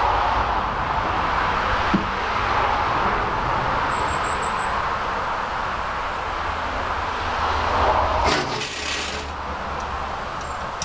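Starter motor cranking the 1952 Fordson E83W's side-valve four-cylinder engine without it catching; the cranking stops about eight seconds in.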